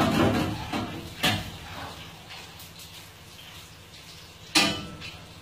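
Knocks and clatter of kitchen equipment being handled: a few sharp bangs in the first second and a half, and the loudest one about four and a half seconds in, over a steady low hum.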